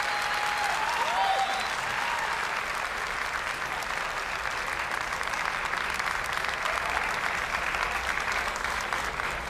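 Arena audience applauding steadily, with a few cheering voices in the first couple of seconds.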